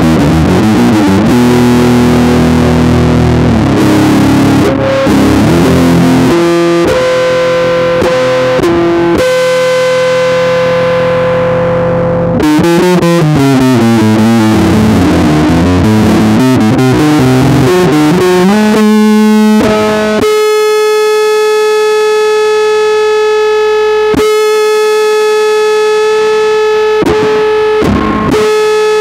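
Four-string electric bass played fingerstyle along with a distorted metal recording. The music is dense for the first half. Wavering pitched lines follow, and from about two-thirds of the way in it settles into long held notes.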